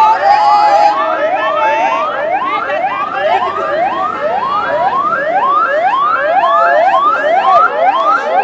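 Vehicle siren yelping in quick rising sweeps, about two a second.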